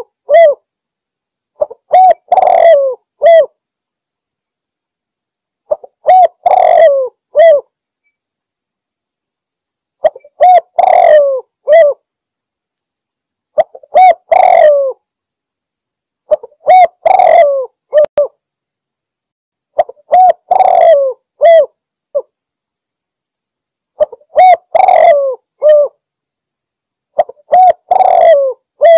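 Spotted dove (tekukur) cooing: a short phrase of several coos, repeated about every three and a half seconds, eight times, with dead silence between phrases.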